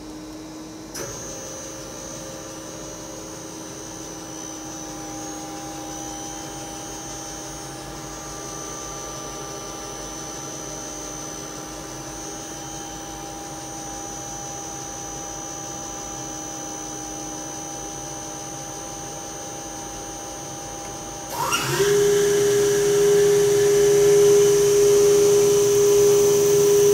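Spindle of a Hardinge VMC-1000II CNC vertical machining center (8000 rpm spindle) running with a steady whine. About 21 seconds in it speeds up with a quick rising whine and then runs on much louder at a higher, steady pitch.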